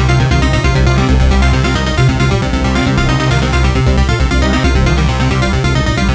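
Electronic music from a small Korg volca synthesizer: a sequenced pattern of quick repeating notes over a steady low bass.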